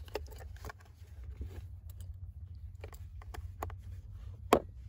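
Canvas web gear with metal buckles and snaps being handled: irregular small clicks and taps over a low rumble, with one sharper click near the end as a pouch flap is reached for.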